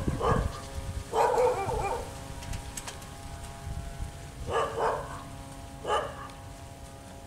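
A dog barking in short bursts, with a longer run of barks about a second in and a few more around five to six seconds in.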